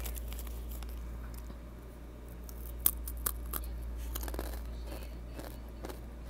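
Takis rolled tortilla chips being bitten and chewed close to the microphone: a few sharp, crisp crunches, the loudest about three seconds in, over a steady low hum.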